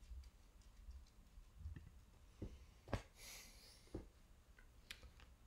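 Near silence of a small room, broken by a few faint clicks and knocks; the sharpest, about three seconds in, is followed by a brief hiss.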